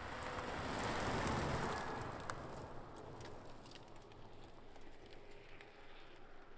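A vehicle rolling past on a gravel road, heard mostly as tyre-on-gravel noise that swells about a second in and then fades, with scattered clicks of stones and little engine tone.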